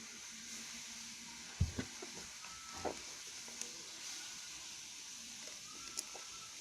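Shaving-foam slime being kneaded and stretched in the hands, giving a few small pops and clicks over a steady hiss.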